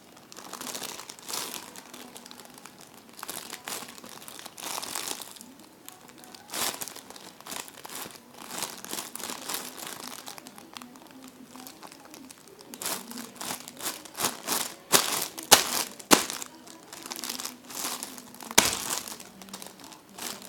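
Plastic bag crinkling and rustling in irregular bursts as it is handled, with a few sharper, louder crackles in the second half.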